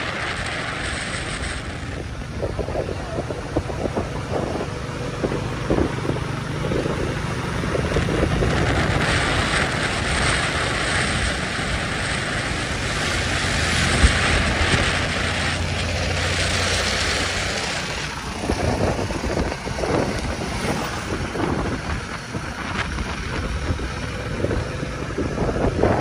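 Motorcycle riding along a road: a steady engine hum and road hiss, with wind buffeting the microphone. The hum and hiss drop away about two-thirds of the way through, leaving gusty wind noise.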